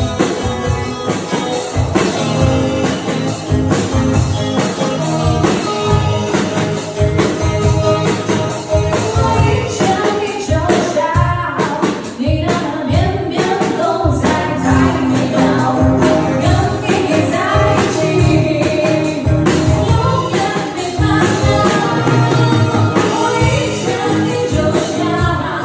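Pop song playing: full band with a steady beat and singing.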